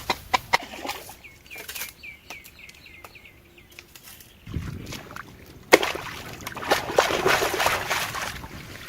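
A bird gives a quick run of short, repeated chirps. Then water sloshes and splashes, with one sharp knock, growing loudest near the end.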